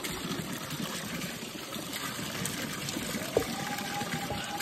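Water running steadily from an outlet, with a single sharp click about three seconds in and a faint steady tone after it.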